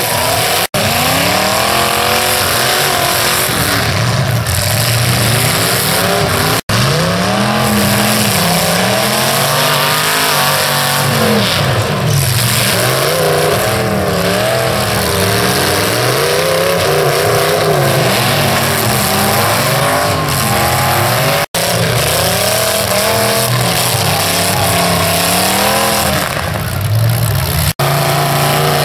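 Demolition derby cars' engines revving hard, the pitch rising and falling over and over as the cars lunge back and forth, with tires spinning in the dirt. The sound breaks off for an instant about four times where the footage is cut.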